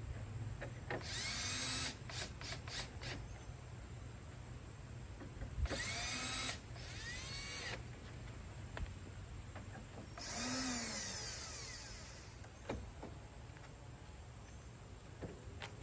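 Power drill running in three short bursts, each whirring up to speed and winding down, with a few sharp clicks between the bursts.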